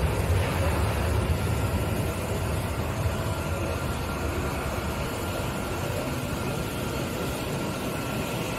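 Steady low rumble of jet airliner engines idling on the apron, easing slightly over the first few seconds, with a faint steady whine coming in after about two seconds.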